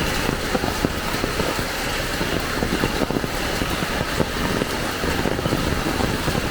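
Heavy rain falling steadily, a dense wash of noise made of many separate drop impacts.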